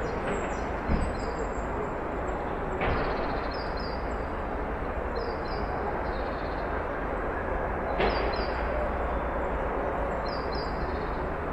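Backyard ambience: a steady rumbling background noise, with a bird repeatedly chirping short high paired notes every couple of seconds. A few sudden louder swells come about one, three and eight seconds in.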